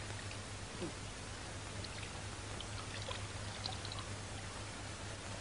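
Steady, even hiss with a low hum underneath and a few faint ticks.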